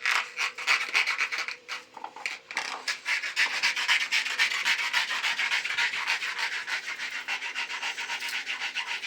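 Hand sanding: rapid back-and-forth rasping strokes of an abrasive on a surface, starting abruptly and going on steadily at several strokes a second.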